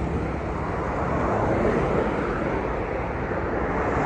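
Steady road traffic noise, with vehicle engines and tyres passing close by and no single event standing out.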